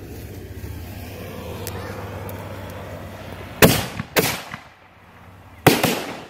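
Backyard fireworks going off: three sharp, loud bangs in the second half, the first two about half a second apart, over a steady low hum.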